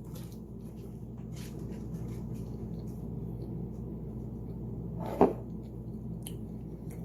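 Quiet eating sounds from someone tasting a microwaved mug cake: faint clicks and taps over a steady low hum, with one short louder sound about five seconds in.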